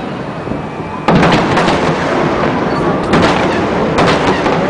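Aerial fireworks shells bursting: a sharp bang about a second in, then further bursts about two and three seconds in, with a continuous loud rumble between them.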